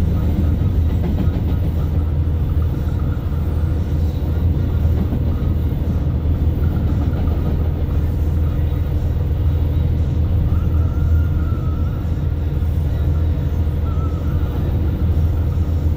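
Double-stack intermodal container train rolling past at close range: a steady, loud rumble of steel wheels on rail from the well cars, with a faint high squeal that comes and goes.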